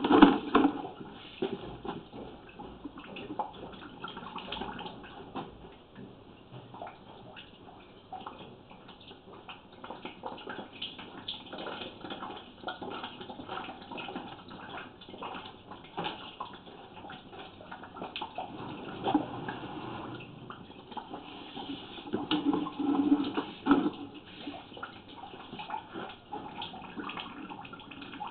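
Water running and splashing down a washing machine drain pipe, with scattered small ticks and drips. It surges louder at the start and twice more in the second half.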